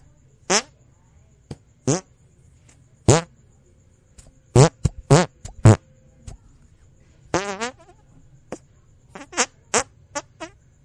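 A string of short fart sound effects, about a dozen separate blasts with pauses between them, each bending in pitch; one longer, wavering one comes about seven seconds in.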